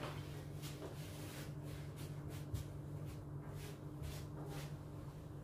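Quiet kitchen room tone: a steady low hum with faint scattered clicks and rustles of handling, one slightly sharper click about two and a half seconds in.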